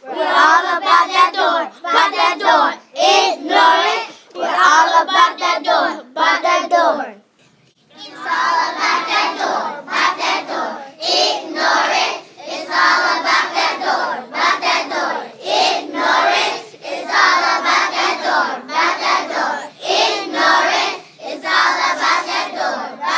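A group of children singing together in short, repeated phrases, breaking off for about a second about seven seconds in.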